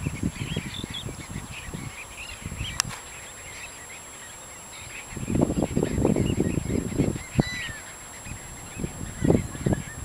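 A flock of birds in the shallows calling, with many short high calls overlapping and one gliding call about seven and a half seconds in. Louder low rumbling bumps come from about five to seven and a half seconds in and again near the end.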